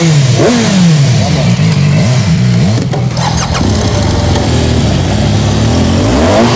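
Motorcycle engines revving up and down as two adventure bikes pull away on a dirt track, the pitch rising and falling repeatedly.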